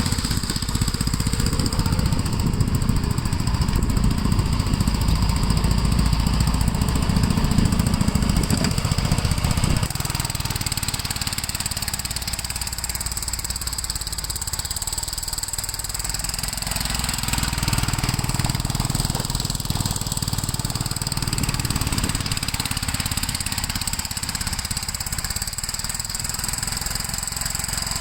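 Gravely L8 walk-behind tractor's engine running steadily under plowing load, dropping somewhat in level about ten seconds in.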